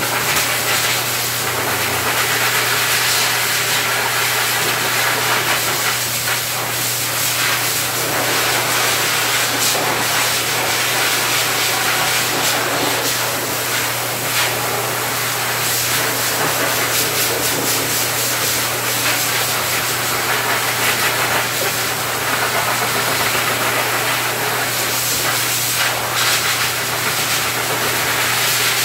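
Hose-type dog grooming blower dryer running steadily, blowing air through its nozzle into a dog's coat: a loud, even rush of air over a steady motor hum.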